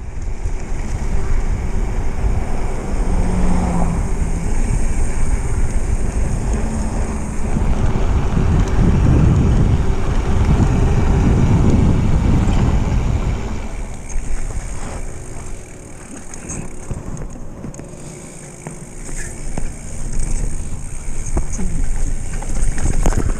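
Wind buffeting the microphone of a bicycle rushing down a paved road, loudest about halfway through. From about 14 seconds in the rush eases and is replaced by the crunch and rattle of the bike rolling over a rough dirt trail.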